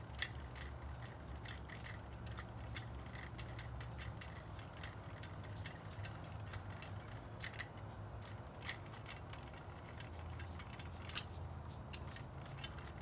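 Light metallic clicks, a few a second and unevenly spaced, from the truck's jack handle being turned by hand to lower the truck. A steady low rumble lies underneath.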